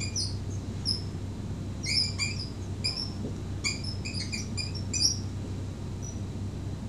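Dry-erase marker squeaking on a whiteboard as a word is written: short, high squeaks in quick clusters, which die away about five seconds in.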